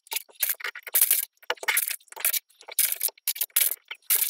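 Plastic LEGO bricks clicking and clattering as pieces are handled in trays and pressed together: a quick run of sharp clicks with short gaps between them.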